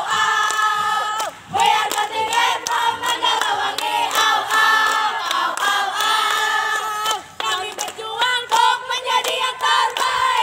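A large group of girls and women chanting and singing a yel-yel group cheer together, loudly and in unison, punctuated by sharp claps. The singing breaks off briefly about a second and a half in and again about seven and a half seconds in.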